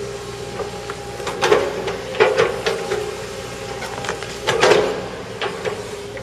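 Tracked hydraulic excavator running with a steady engine and hydraulic tone, broken by several sharp cracks and knocks as its bucket tears into tree roots and earth. The loudest bursts come about a second and a half in, just after two seconds, and past four and a half seconds.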